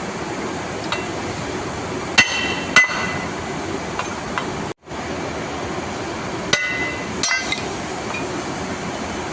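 Hammer blows on the steel tension-pulley bearing assembly during bearing replacement: two sharp ringing metal strikes about half a second apart, then two more about four seconds later, over a steady background hiss. The sound cuts out briefly near the middle.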